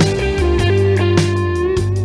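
Background instrumental music with sustained bass notes and a steady beat.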